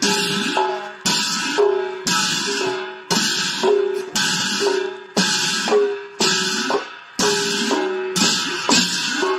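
Khol drum and hand cymbals playing devotional music in a steady beat, with a cymbal clash ringing out and dying away about once a second.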